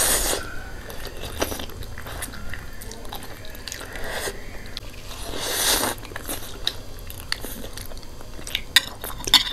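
Two people slurping and chewing spicy instant noodles: a loud slurp right at the start and another about five and a half seconds in, with quieter chewing between and a run of sharp smacks and clicks near the end.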